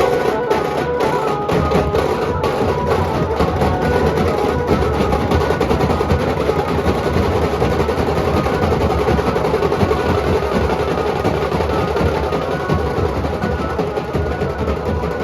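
Nashik dhol ensemble drumming: big barrel dhols beaten in a fast, dense, unbroken rhythm.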